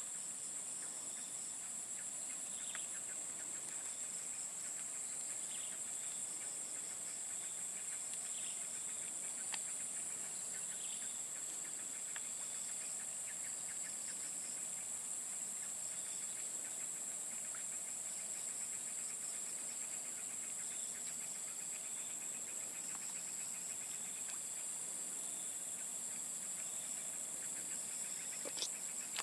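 Steady, high-pitched chorus of insects shrilling without a break, with a few faint short chirps scattered over it.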